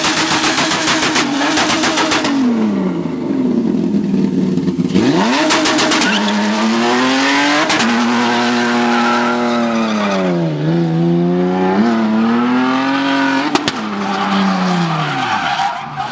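Toyota Land Cruiser GXR engine revving hard through a burnout and donuts, its pitch swinging up and down again and again, over the screech of the spinning tyres. The engine stutters rapidly near the start.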